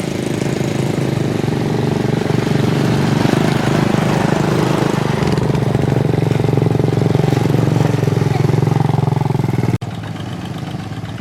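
An engine running steadily close by, its level building over the first few seconds and then holding. The sound drops off abruptly near the end.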